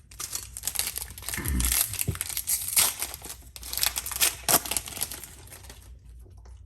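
Foil wrapper of a Yu-Gi-Oh! booster pack crinkling and tearing as it is opened, dying away near the end.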